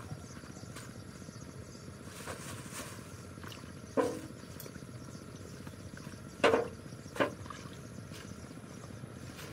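Debris being pulled from shallow muddy water and handled into a plastic trash bag: three short knocks and splashes, one about halfway through and two close together a couple of seconds later, the middle one the loudest, over a steady outdoor background hiss.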